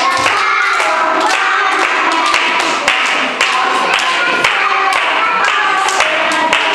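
A group of young children singing a song together, with hand claps keeping a steady beat.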